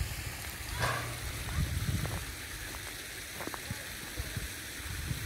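Water trickling steadily over the stones of a small rocky stream, with irregular low thumps and rumbles over it.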